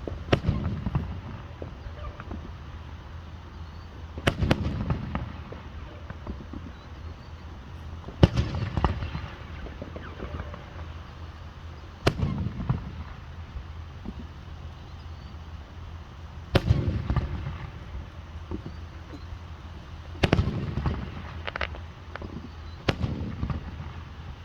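Fireworks bursting: seven sharp bangs, roughly one every four seconds, each followed by a low rumble.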